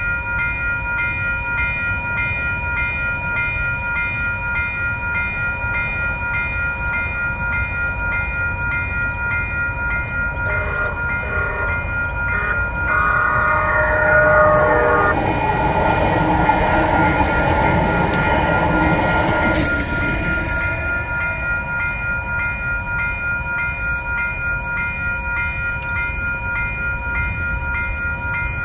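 A Western-Cullen-Hayes (WCH) railroad crossing bell rings steadily and rapidly throughout. About halfway through, a Lynx Blue Line light rail train runs through the crossing, and its passing noise swells and fades over roughly seven seconds under the bell.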